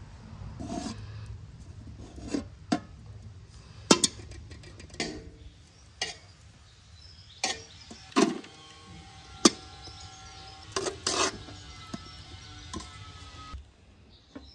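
Metal spoon knocking and scraping against a large aluminium pot and a glass bowl as butter is scooped into the pot: about a dozen sharp clinks at irregular intervals.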